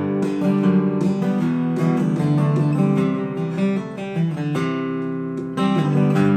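Vintage 1970s Yamaha black-label acoustic guitar, spruce top with phosphor-bronze strings, played with chords strummed and picked in succession. About four and a half seconds in, one chord is left ringing and fading before playing picks up again about a second later.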